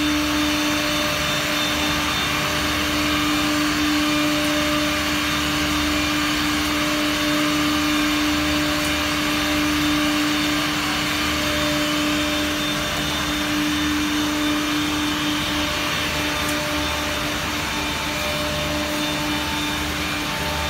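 Yow Cherng four-head CNC mortising machine cutting mortises in wooden chair parts: its router spindles run with a steady, constant-pitched whine over a broad hiss.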